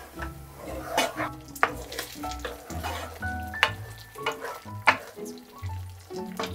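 A curry base of tomato purée and yogurt sizzling in a pan as it is stirred, with a few sharp knocks of the utensil against the pan. Background music with a steady bass line plays throughout.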